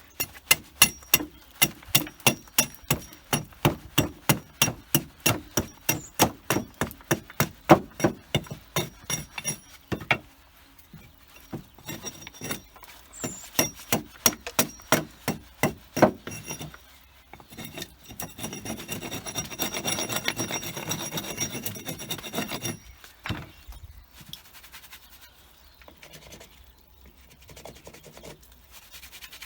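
A hand tool working a firewood log: quick rhythmic strokes, about three a second, that pause about ten seconds in and pick up again for a few seconds, then a few seconds of steady scraping around twenty seconds in.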